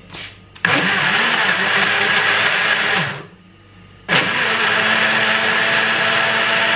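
Countertop blender puréeing tinned tomatoes. It starts about half a second in, runs steadily for a couple of seconds, winds down and stops, then starts again about four seconds in and keeps running.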